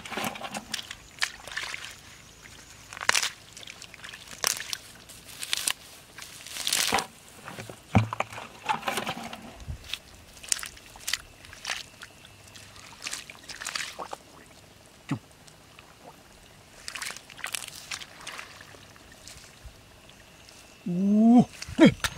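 Hands digging and splashing in shallow muddy water, a run of irregular wet splashes. Near the end a man's voice briefly exclaims.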